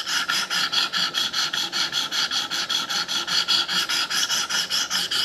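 Coarse 300-grit stone of a KME guided knife sharpener rasping against a steel blade edge in quick, even back-and-forth strokes, about six a second.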